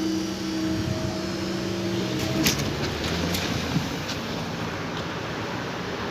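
Electric train running by at a level crossing: a steady hum that cuts off about two seconds in, followed by a few sharp clicks over a continuous rumble.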